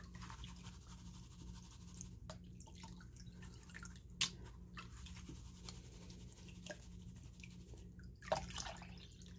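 Faint water sloshing and dripping as a plastic gold pan of crushed ore is dipped and swirled in a tub of water, with a few small splashes.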